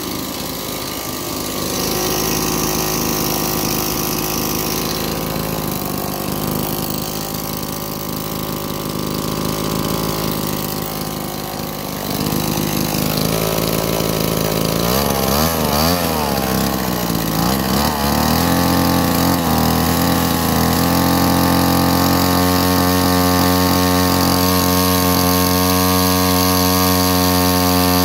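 Weed Eater 609 string trimmer's small two-stroke engine running. It gets louder about halfway through, revs up and down a few times, then settles at a steady speed.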